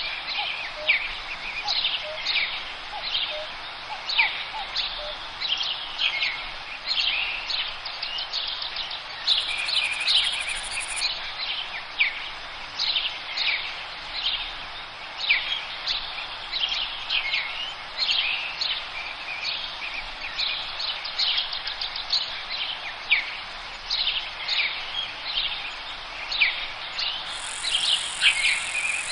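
Chorus of forest songbirds singing continuously, many overlapping quick chirps and short falling whistles, with a high thin buzzing note coming in twice, about a third of the way through and near the end.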